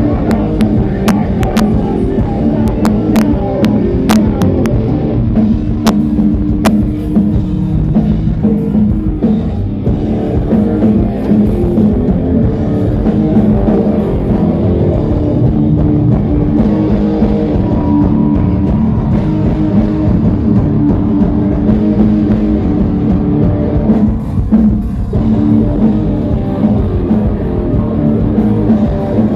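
Industrial metal band playing live, with distorted guitars, bass and drums loud and dense. Sharp clicks cut through the mix during the first several seconds.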